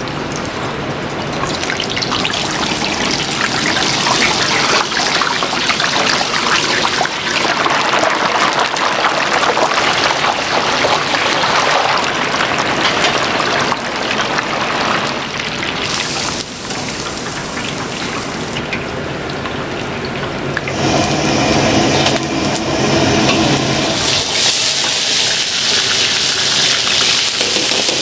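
Chunks of grouper deep-frying in a commercial fryer, the hot oil bubbling and crackling steadily. Later the sizzle changes as sliced aromatics fry in a wok.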